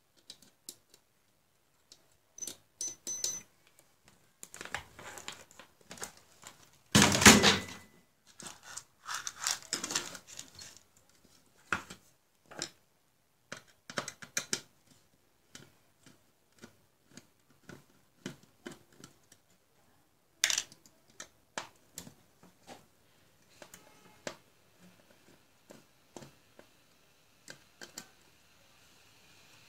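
Handling noise on a workbench: scattered clicks and taps of multimeter probes, wires and a computer power supply's metal case being handled. There is a louder scrape lasting about a second roughly seven seconds in.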